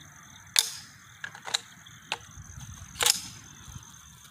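Handling noise: about five sharp clicks and knocks over four seconds, the two loudest about half a second in and about three seconds in.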